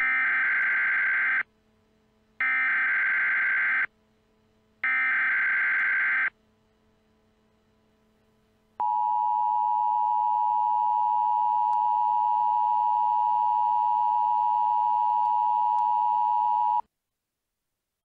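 Emergency Alert System broadcast signal: three short bursts of SAME header data, each about a second and a half long and about a second apart. After a pause of a couple of seconds comes the EAS two-tone attention signal, sounding steadily for about eight seconds and then cutting off abruptly.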